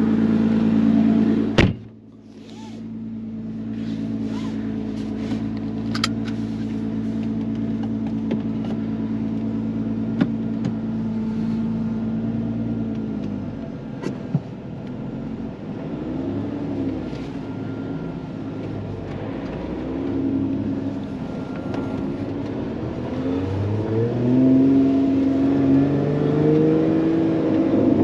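Lotus Emira's supercharged 3.5-litre V6 idling steadily. About a second and a half in, the car door shuts with a thump and the engine sound drops and turns muffled. Around halfway through, the revs start rising and falling as the car pulls away slowly in first gear.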